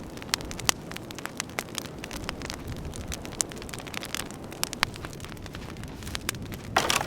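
Wood fire crackling, with sharp irregular pops over a steady hiss. A louder rustle comes near the end.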